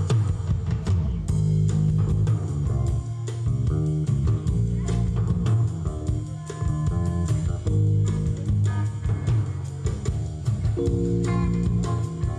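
Live rock band playing: electric guitar and bass guitar over a drum kit keeping a steady beat, with no vocals.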